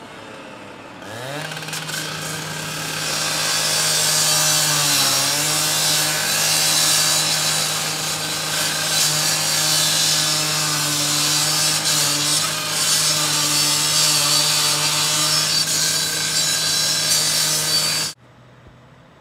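Firefighter's power cut-off saw cutting into the metal of a burned-out car. The saw spins up in a rising whine about a second in, drops in pitch briefly as the blade bites, runs steadily, and cuts off suddenly near the end.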